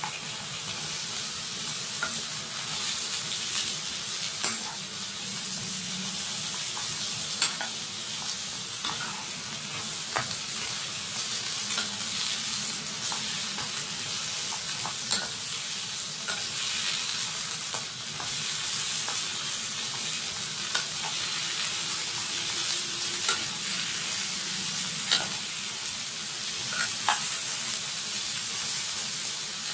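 Strips of bottle gourd sizzling steadily in hot oil in a pan while being stir-fried with a wooden spatula, with scattered light clicks of the spatula against the pan.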